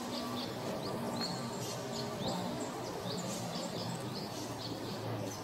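Birds chirping: many short, high calls repeating irregularly over a steady background hiss.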